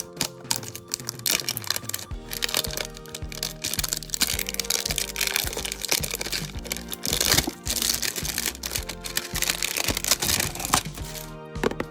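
Background music with plastic packaging crinkling and crackling, dense sharp crackles for most of the stretch as a toy is unwrapped.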